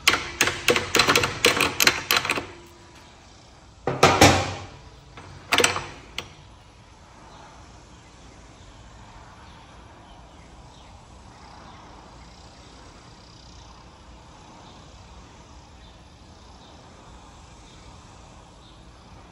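Mallet tapping on the end of a mower engine's gearbox output shaft to knock the shaft and its helical drive gear loose: a quick run of about a dozen light knocks over two seconds, then two louder knocks about four and five and a half seconds in. After that only faint room noise.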